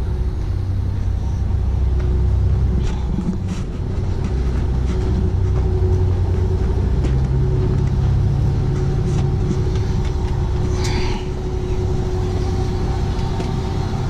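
Heavy truck diesel engine running steadily, a low rumble with a steady hum, its low note shifting a little about halfway through. A few light knocks in the first few seconds.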